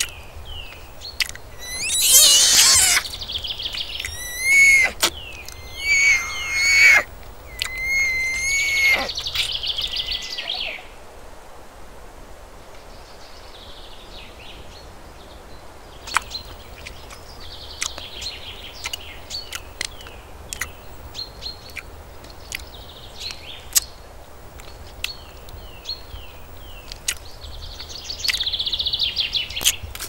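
Wild animal calls in forest ambience. Several loud, high, warbling and whistled calls come in the first ten seconds, followed by softer chirps and scattered sharp clicks, with another burst of calls near the end.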